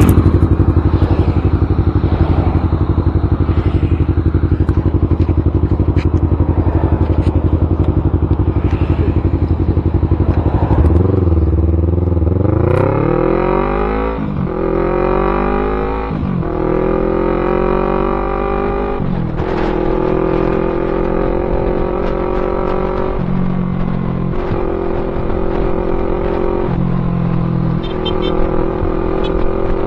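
Yamaha MT-03 motorcycle with a full-system aftermarket exhaust, running steadily at first, then accelerating about eleven seconds in with the engine pitch rising and dropping back at several gear changes, then running on at a steadier speed.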